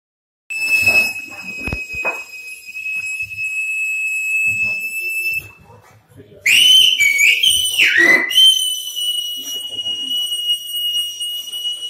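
Silbo Gomero, the whistled language of La Gomera, whistled loud and high by a person: a long held note, then a quick run of gliding rising and falling notes about six and a half seconds in, then another long held note.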